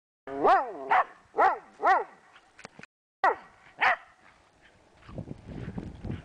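Pembroke Welsh Corgi barking six times in quick succession, each bark rising and falling in pitch, then a low rumbling noise near the end.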